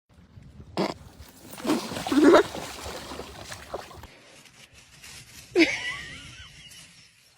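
An animal's short calls, one about two seconds in and another, pitched and bending, about five and a half seconds in, over rustling and a click.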